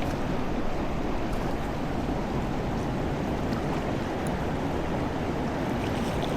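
Steady rushing of flowing river water, an even wash of sound with no break.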